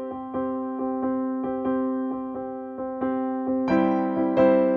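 Background keyboard music: soft, piano-like chords with a steady run of notes struck about two to three times a second, growing fuller near the end.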